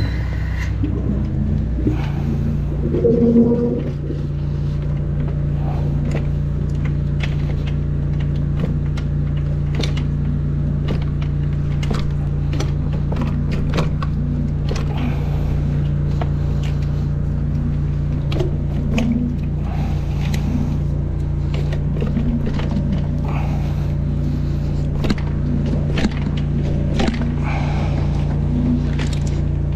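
High-pressure drain jetter running at a steady hum while its hose and reverse nozzle are fed down a sewer gully to blast out a fat build-up, with frequent clicks and scrapes of the hose working in the pipe and a brief louder rush about three seconds in.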